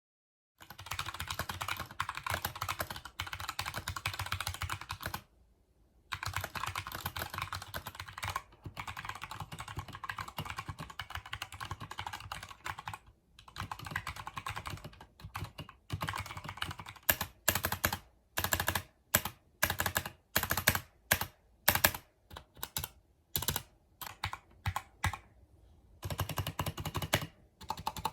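Keychron K2 mechanical keyboard with Gateron Brown switches being typed on: fast runs of keystrokes broken by short pauses. Past the middle it changes to separate, louder single key presses about two a second, and fast typing resumes near the end.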